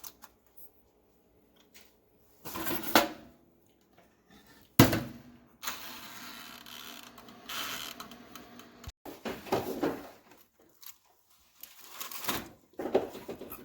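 Kitchen handling sounds: a few knocks and clatters, with one sharp bang about five seconds in, like a drawer or small appliance door being shut.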